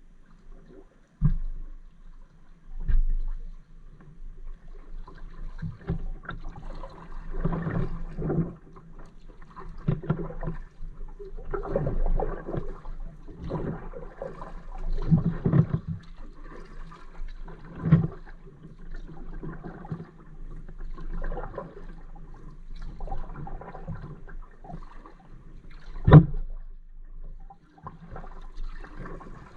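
Kayak paddle strokes splashing and dripping in calm water, coming irregularly about every second or two. A few sharp knocks come in between, the loudest near the end.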